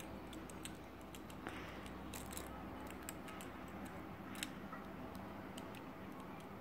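Faint, scattered clicks of the loose plastic pieces of a disassembled GAN Monster Go magnetic 3x3 speed cube being handled and pressed together by hand, the clearest a little after two seconds and past four seconds.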